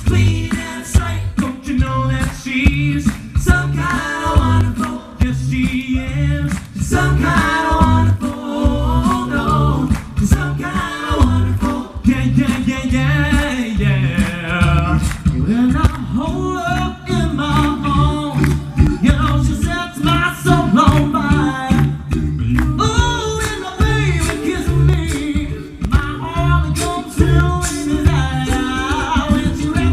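An a cappella vocal band singing in close harmony over a low sung bass line, with a steady beat.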